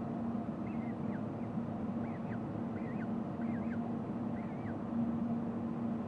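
Steady mechanical hum over an even rushing hiss, with a series of about six faint short bird chirps from about a second in to near the end.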